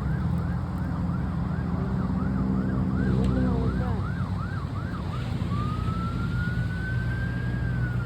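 Emergency vehicle siren in yelp mode, a fast up-and-down sweep repeating about two and a half times a second, switching about five seconds in to a slow wail that rises, holds and begins to fall near the end. A steady low rumble runs underneath.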